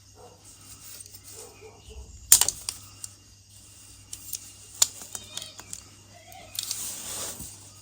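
Metal hand tools clicking and clinking against the motorcycle's exhaust studs and frame, locking pliers (mole grips) being worked onto a sheared exhaust stud, with a sharp knock about two seconds in and a brief scraping rustle near the end.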